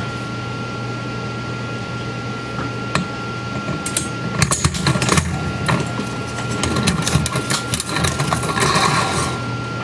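A rag wiping WD-40 and dirt off a stretched-out steel clock mainspring, with the coils clicking and scraping as they are handled. The clicks and scrapes come in the second half, over a steady hum.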